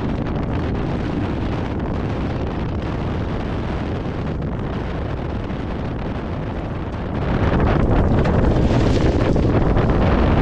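Ford Bronco Raptor driving on a dirt course, with wind buffeting the microphone. The rush grows louder about seven seconds in.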